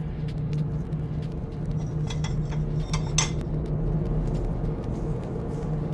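A ceramic plate clinking against other dishes as it is taken out, a few sharp clinks between about two and three seconds in, over a steady low hum.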